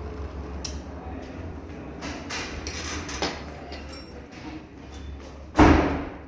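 A steady low hum with scattered light clicks and knocks, then one loud thud near the end that dies away over about half a second.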